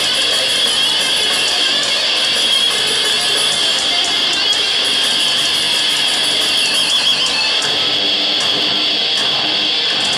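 Heavy metal band playing live: loud, dense distorted electric guitars over drums.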